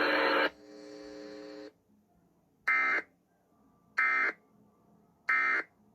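Emergency Alert System End of Message: three short, identical electronic data bursts about 1.3 seconds apart, each lasting about a third of a second. They signal that the alert broadcast is over. They follow a held tone that dies away within the first second and a half.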